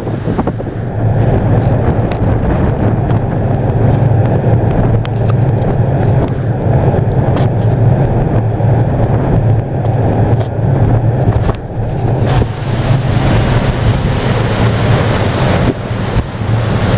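Wind buffeting the microphone on a ferry's deck over a steady low hum from the ship's engines, which the handrail carries as vibration. The hiss of wind and water grows louder from about twelve seconds in and eases near the end.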